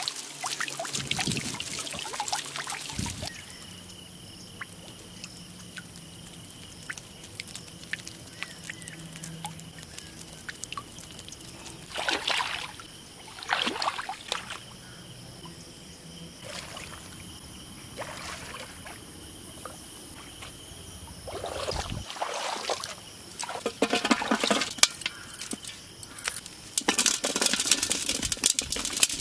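Shallow water splashing and pouring off a bamboo fish trap as it is handled in a flooded paddy. It comes in several separate bursts, with quieter stretches between that carry a faint, steady high-pitched whine.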